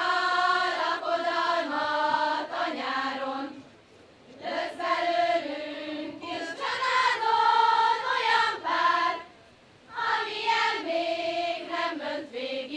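Women and girls singing a Hungarian folk song together, unaccompanied, for a karikázó ring dance. Three sung phrases with short breaks between them, about four and nine seconds in.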